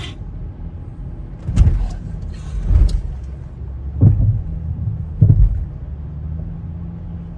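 A motor vehicle's engine running with a steady low hum, with four heavy low thumps about a second apart.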